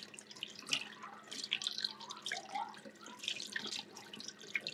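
Cold tap water running into a stainless steel sink and splashing unevenly as a squid tube is rinsed out by hand under the stream.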